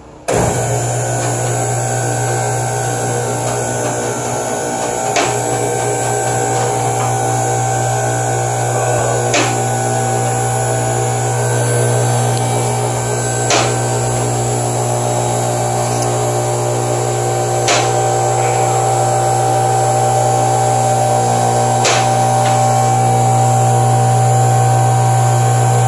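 Electric hydraulic power unit of a two-post car lift running steadily as the lift raises a car body off its chassis: a constant loud hum, with a sharp click about every four seconds as the lift's safety locks catch.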